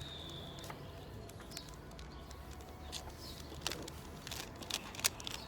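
Rubik's cube being twisted: a series of sharp plastic clicks and clacks as the layers turn, the loudest about five seconds in. The layers catch now and then, which the solver calls locking up. A short high steady tone sounds at the start.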